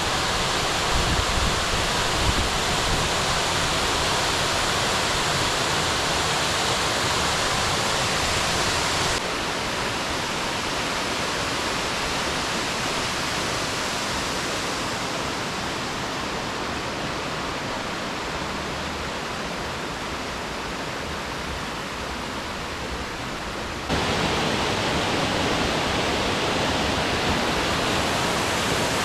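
Waterfall rushing in a steady roar of falling water. The sound steps down abruptly about nine seconds in, becoming quieter and duller, then jumps back up just before the last five seconds.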